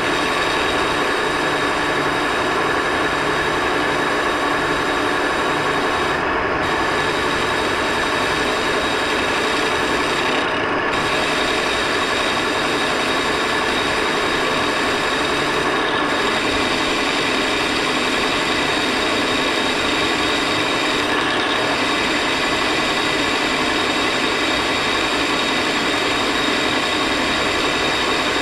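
Metal lathe running steadily, with gear whine and the hiss of a boring bar cutting inside a spinning metal part. The cut goes smoothly, without the chatter (resonance) of the previous boring bar.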